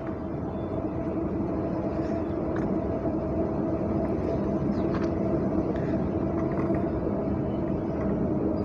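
Steady rumble and hum of nearby vehicle engines, growing slightly louder.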